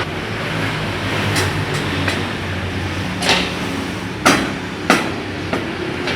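An engine running steadily, with a series of sharp knocks over it, the loudest two a little past four and near five seconds in.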